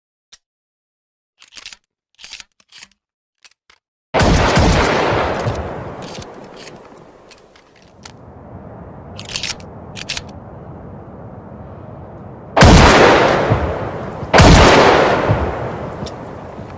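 Over-and-under shotgun: a few light sharp clicks, then a loud shot with a long fading echo. About eight seconds later come two more shots less than two seconds apart, each trailing off in a long echo.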